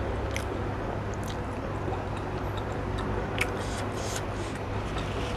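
A person chewing food close to the microphone: a few soft, scattered mouth clicks over a steady background hiss.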